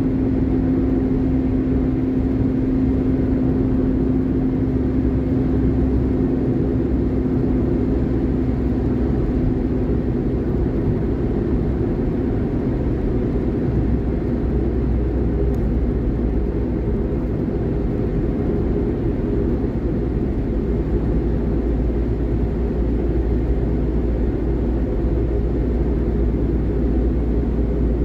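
Car cruising steadily on a highway: a constant low rumble of road and engine noise. A steady hum runs over it and fades out about ten seconds in.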